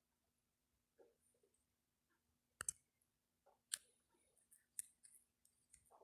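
Near silence with a few faint, sharp clicks scattered through it, the clearest three about a second apart in the middle, over a faint steady hum.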